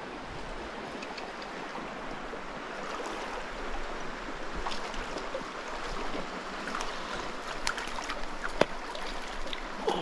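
Shallow stream water running and rippling steadily, with a few faint sharp ticks in the second half.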